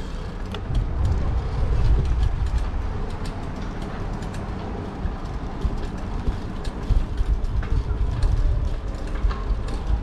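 Ride noise from a moving bicycle: a steady low rumble of wind on the microphone and tyres on the road, with scattered light clicks and rattles.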